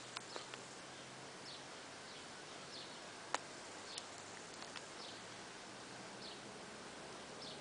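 A small bird repeats a short, high, falling chirp about once a second, faintly. There is one sharp click a little over three seconds in, with a few softer ticks around it.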